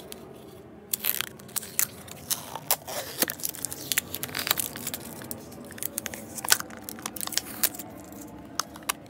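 Packaging being torn and crinkled open by hand: irregular sharp crackles, tears and clicks.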